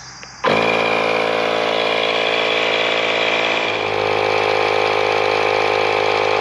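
Milwaukee cordless portable tire inflator's compressor starting about half a second in and running steadily, its tone shifting slightly partway through.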